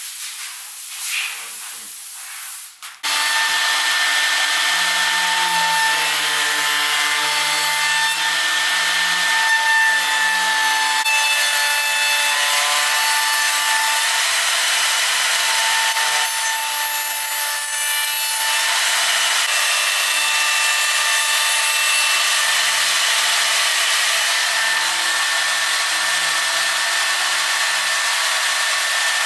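CNC router spindle cutting wood: a steady high whine over a continuous rasping cutting noise, starting suddenly about three seconds in and holding at an even level.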